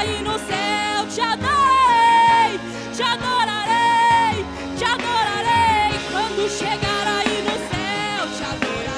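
Live gospel worship song with a band accompanying. A melody line holds and slides between notes, with no words.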